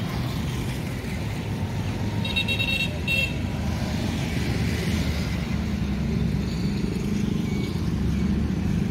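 Roadside traffic: a low, steady engine rumble from vehicles, and a vehicle horn beeping twice in quick succession about two and a half seconds in, the first beep longer.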